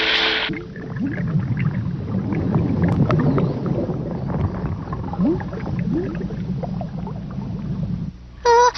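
Cartoon splash into water that breaks off about half a second in, followed by an underwater sound effect: a low muffled rumble with bubbles gurgling up. A voice starts shouting near the end.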